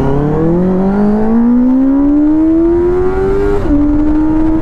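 Benelli 600i inline-four motorcycle engine accelerating hard, its note climbing steadily through one gear. About three and a half seconds in, the pitch drops as the rider shifts up, and the engine then holds a steady note.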